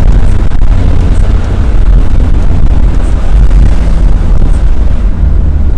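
An Elf minibus driving at speed on a highway: a loud, steady low rumble of engine, road and wind noise on the microphone.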